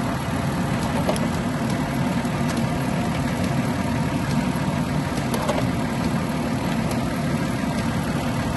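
2012 Ford Escape's 3.0-litre V6 engine running steadily at idle.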